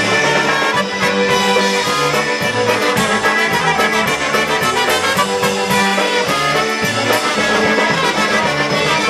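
Live polka band playing an instrumental break: two trumpets lead the tune over a steady beat with alternating low bass notes.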